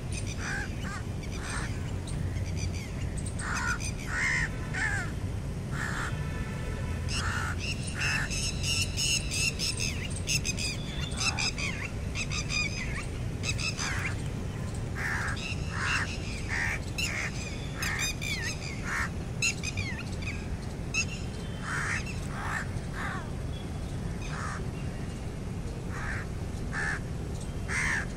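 Crows cawing over and over, many short calls, some in quick runs, over a steady low background rumble.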